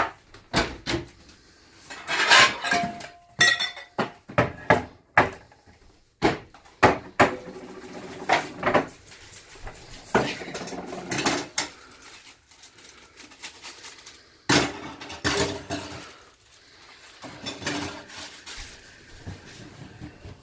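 Hurried kitchen clatter of dishes, bowls and utensils being grabbed and set down: a rapid, irregular run of knocks and clinks, a few ringing briefly.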